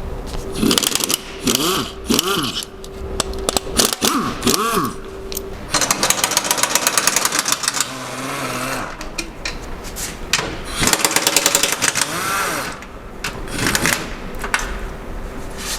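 Impact wrench hammering in several short bursts, undoing the 13 mm bolts of an exhaust hanger bracket. Between the bursts its motor whine rises and falls.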